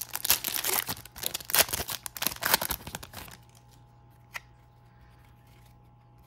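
A trading card pack's printed wrapper being torn open and crinkled for about three seconds, then dropping to quiet with a single light click.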